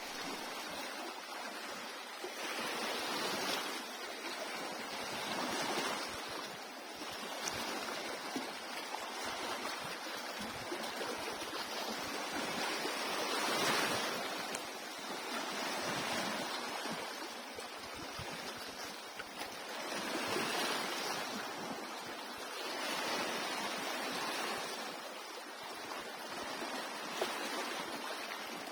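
Surf breaking on a beach: a steady wash of water noise that swells and eases every few seconds as the waves come in.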